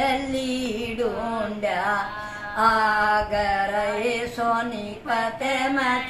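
A woman singing a Haryanvi folk song unaccompanied, in long held notes that bend in pitch.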